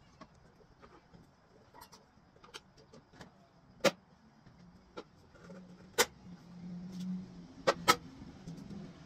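Winch contactor clicking sharply several times, with the electric winch motor humming low for a few seconds from about the middle on, as the wireless remote is tested.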